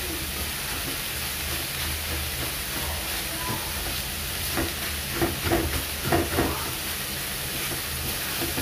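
Water spinach greens sizzling in a pan of hot oil with garlic, a steady frying hiss, with a few quick scraping strokes of a spatula stirring them a little past the middle.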